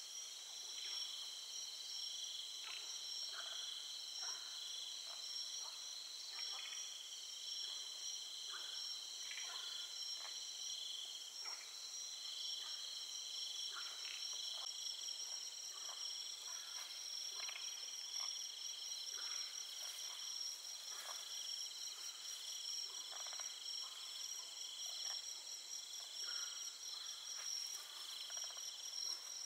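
Night chorus of crickets and other insects trilling steadily at several high pitches, with short chirps and clicks scattered through it.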